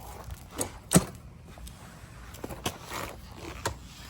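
A few sharp clicks and knocks of hard plastic being handled as a removed car fog light unit is turned over, the loudest about a second in.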